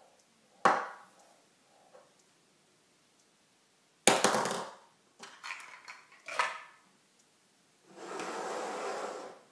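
A sharp knock, then a loud clattering hit about four seconds in followed by a few quicker knocks, as of hard objects struck or dropped; near the end a steady rushing noise lasts about a second and a half.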